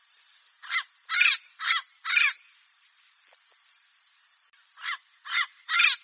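Turquoise-fronted Amazon parrot squawking: four loud calls in quick succession about a second in, then, after a pause, three more near the end.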